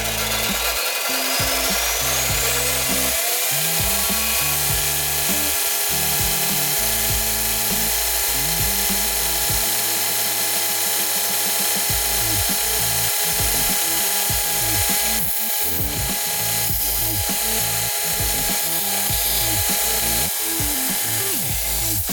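Craftex CT169N combination bench grinder and belt sander running: its motor rises in pitch over the first few seconds as it comes up to speed, then runs steadily with the belt turning.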